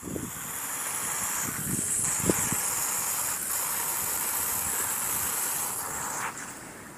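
Garden hose spray nozzle hissing steadily as it shoots a fine jet of water, with a low rumble and a few dull bumps underneath; the hiss drops away about six seconds in.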